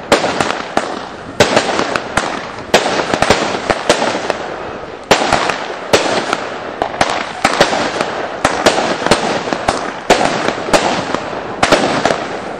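Fireworks going off in a rapid, continuous series of sharp bangs, roughly one every half second to a second, each trailing off in a fading hiss.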